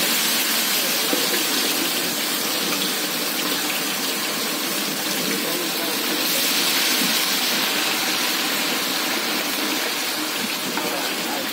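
Chicken 65 pieces deep-frying in hot oil in an iron kadai: a steady, hissing sizzle of oil bubbling hard around a freshly added batch.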